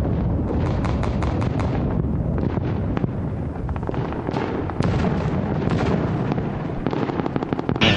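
Airsoft guns firing: a quick run of sharp clicking shots about a second in, then scattered single shots, over a heavy low rumble of wind on the microphone.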